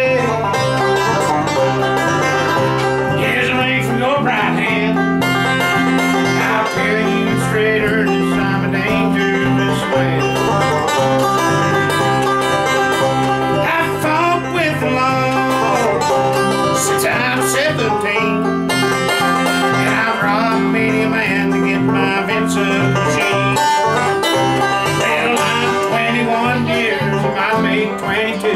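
Live acoustic bluegrass band playing at a brisk steady pace: five-string banjo picking over strummed acoustic guitar and mandolin, with a bass alternating between notes underneath. A man sings the lead over the instruments.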